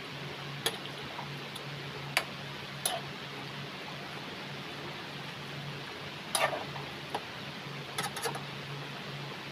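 Metal ladle clinking and scraping against an aluminium wok while soup is stirred: a handful of short sharp clinks, a cluster about six seconds in and two close together near the end, over a steady hiss and low hum.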